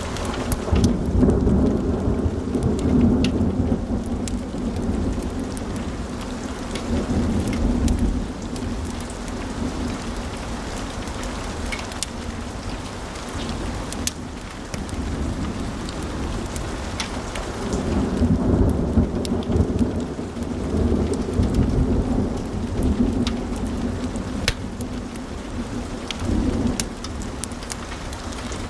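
Wood fire burning in a fireplace: a low rumble of flames that swells louder twice for several seconds, with many sharp crackles and pops from the burning logs.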